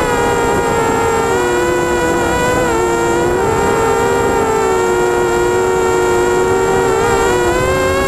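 Switchblade 200 mini quadcopter in flight, heard from on board: its Emax MT1806 brushless motors and 5x3 Gemfan nylon props give a steady whine of two close pitches that drift up and down as the throttle changes.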